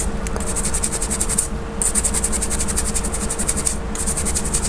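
Fingertips rubbing over a steel universal BGA reballing stencil to work a freshly reballed IC loose: a fast, even scratching of about ten strokes a second that pauses briefly twice, over a steady low hum.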